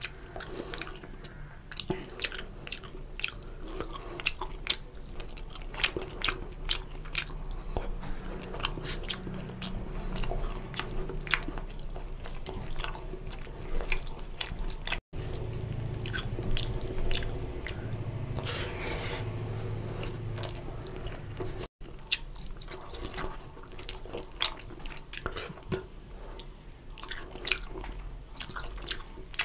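Close-up mouth sounds of a person eating rice and fish curry: wet chewing with frequent lip smacks and sharp little clicks.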